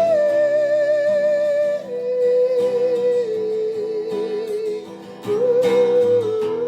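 Instrumental break of a pop ballad: a sustained, wavering lead melody over guitar accompaniment, with a short drop in loudness about five seconds in.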